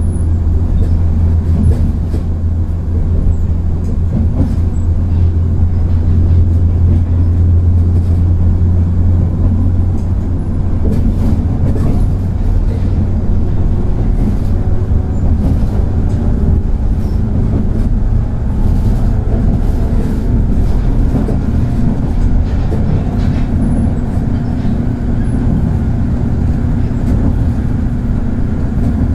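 JR 103 series 3550-subseries resistor-controlled electric train running on the rails: a steady deep hum with a rumbling haze and scattered clicks from the track. The deep hum eases about ten seconds in.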